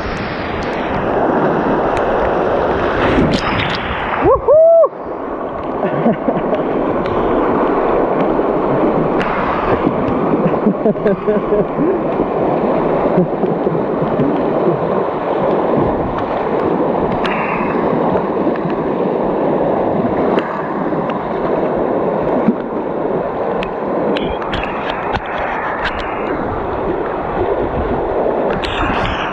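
River water rushing and splashing steadily around a small inflatable boat drifting through rough water. A brief loud gliding tone, a squeak or whistle, comes about five seconds in.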